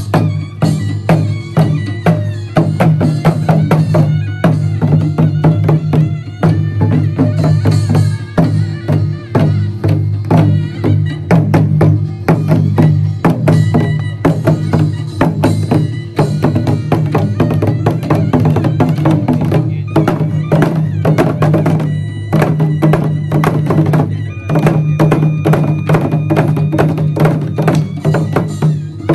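Jindo bukchum: buk, Korean barrel drums, struck rapidly with sticks in a driving traditional rhythm, over accompanying Korean folk music with steady low tones underneath.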